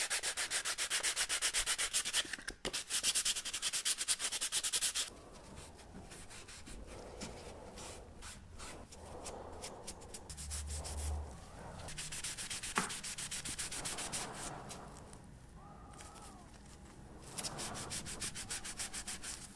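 Sandpaper rubbed by hand over a small wooden drawer pull in quick back-and-forth strokes, stopping about five seconds in. After that, softer rubbing of a rag working gel stain into the wood, with short runs of quicker wiping strokes later on.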